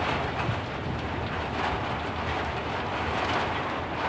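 Storm wind blowing hard in a steady rush, with a low rumble of the gusts.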